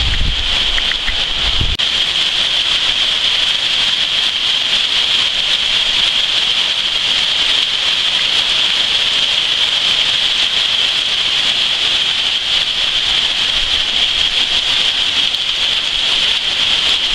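Heavy thunderstorm rain pouring down, a loud steady hiss. A low rumble runs under it for about the first two seconds, then drops away.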